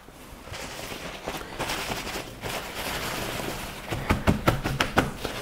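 Paper towels rustling as sheets are pulled off a roll and spread out, then a run of short knocks as hands press and pat parboiled potato fries dry on paper towels on the counter.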